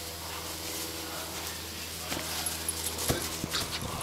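A few soft thumps and scuffs of a West Highland white terrier puppy knocking a soccer ball about on grass, starting about two seconds in with the strongest thump a little after three seconds, over a steady low hum.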